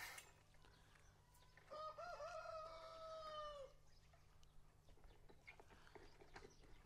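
A rooster crowing once, faint: one long call of about two seconds starting about two seconds in, wavering at first, then held and falling off at the end.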